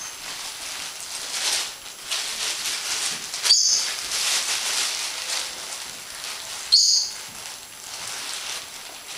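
Kitchen handling noises while bread is laid on a plate: steady rustling with two sharp clinks, one about three and a half seconds in and another about three seconds later.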